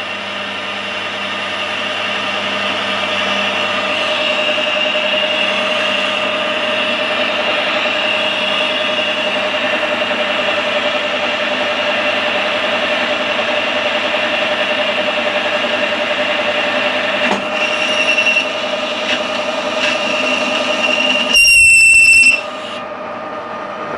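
Metal lathe boring out the inside of a steel tube with a boring bar for a bearing press fit: a steady whine of the running machine and the cut. About 21 seconds in, the tool gives a loud, high squeal for about a second, then the sound drops away.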